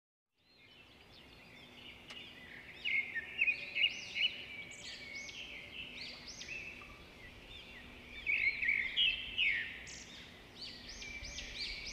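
Many birds chirping and singing in quick overlapping calls and trills. It fades in at the start and cuts off suddenly at the end.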